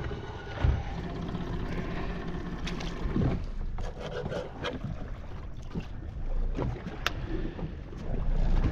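Steady wind and water noise around a small boat on open sea, with scattered knocks and clicks from handling gear on deck.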